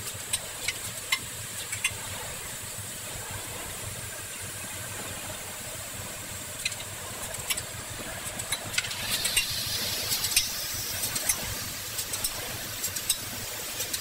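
Automated optical inspection machine for brass gas-burner jet nozzles running: a steady low machine hum with irregular sharp clicks and ticks as the small brass parts are fed and moved along. A brief hiss rises over it about nine seconds in.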